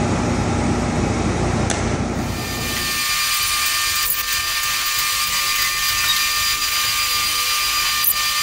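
Heavy machinery running: a low rumble in the first few seconds gives way to a steady high-pitched whine over a hiss.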